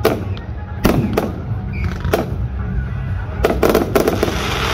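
Professional fireworks display: aerial shells bursting with sharp bangs, spaced out at first, then a quick cluster of bangs followed by a dense crackle near the end.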